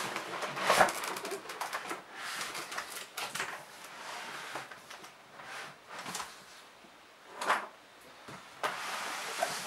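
Large cardboard box being handled and shifted about: rustling and scraping of cardboard, with sharper scrapes about a second in and again near the end.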